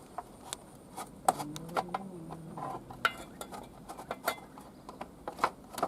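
Irregular sharp metallic clinks and knocks, about a dozen, from metal parts and tools being handled while the motorcycle is being stripped down.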